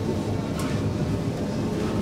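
Stockholm Metro C20 train running along the track, heard from inside the carriage: a steady low rumble.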